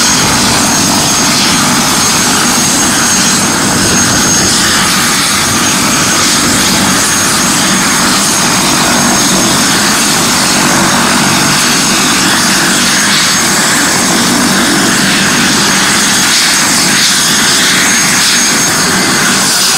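Helicopter running, a loud steady rotor and engine noise with a thin high whine over it.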